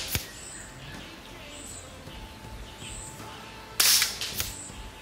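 Kalibrgun Springbok 5.5 mm PCP air rifle firing one shot about four seconds in, a sudden sharp crack followed about half a second later by a second, shorter crack. A single short click comes just after the start.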